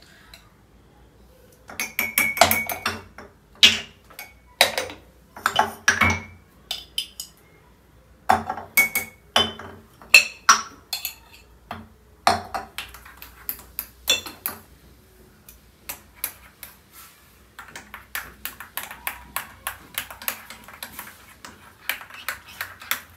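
Porcelain canister lids and a spoon clinking against the canisters and a ceramic coffee cup as spoonfuls are added, in a string of separate sharp clinks, some ringing briefly. Near the end the clinks give way to a busier stretch of small clicks and rattles.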